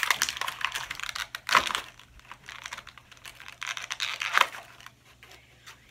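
Clear plastic toy packaging crackling and crinkling as fingers work at it to free small figures, with two louder snaps, about a second and a half in and again near the end.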